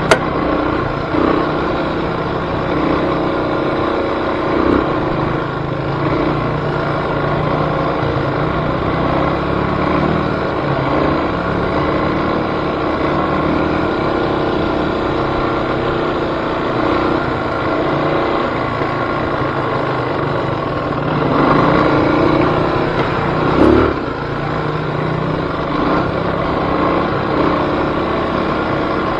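Engine of an off-road vehicle running under way on a trail, its pitch rising and falling as the throttle changes. A short thump comes about three-quarters of the way through.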